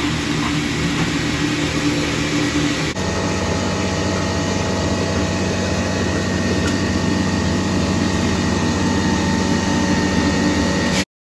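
Steady, loud machinery hum with several constant tones, changing abruptly about three seconds in and cutting off suddenly near the end.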